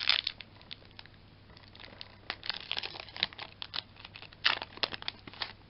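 Foil wrapper of a Yu-Gi-Oh booster pack crinkling and tearing as it is opened by hand, in three spells of crackling: at the start, about two and a half seconds in, and about four and a half seconds in.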